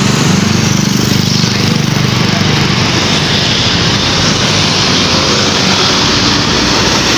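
A large bus's diesel engine running close by, a steady low hum under a continuous rush of road noise.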